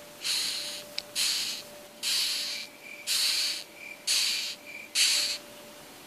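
Beetle hissing: six short bursts of hiss in a steady rhythm, about one a second, with a faint thin tone in some of the gaps.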